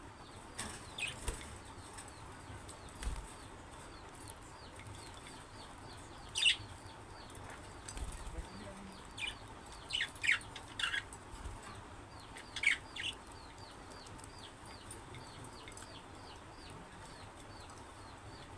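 Budgerigars chirping: a steady run of faint high chirps several times a second, broken by a handful of louder, sharper calls that come in a cluster through the middle.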